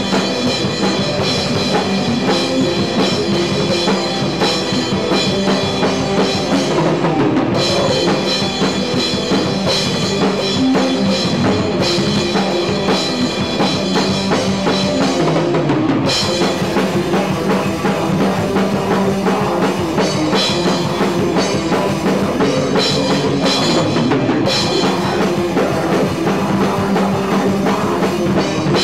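Live metal band playing, heard close to the drum kit: the drummer hitting cymbals and bass drum at speed, loud over the rest of the band.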